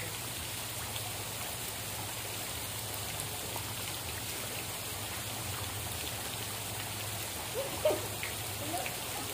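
Steady hiss of falling, splashing water, with a low steady hum beneath it. Faint distant voices come in near the end, and there is one sharp knock about eight seconds in.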